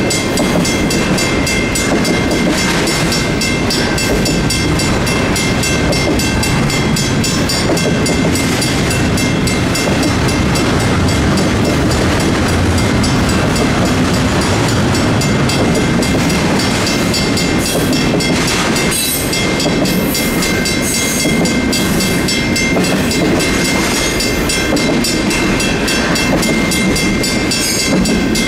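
Union Pacific intermodal freight train rolling through a grade crossing, the wheels rumbling and clattering over the rails. Throughout, the crossing's mechanical and electronic warning bells ring in a rapid, steady stream of strikes.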